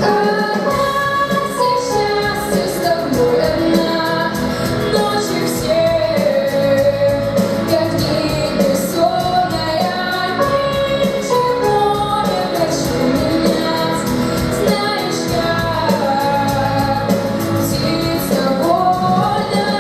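A female voice singing a song with a full instrumental accompaniment, the melody held in long sustained notes.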